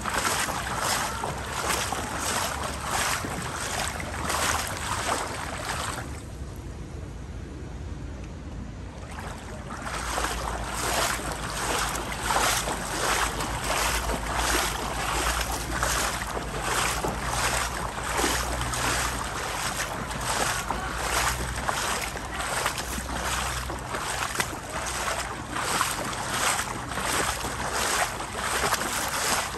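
Footsteps wading through shin-deep floodwater on a street, each stride sloshing and splashing at about two steps a second. The steps pause for a few seconds around six seconds in, then resume.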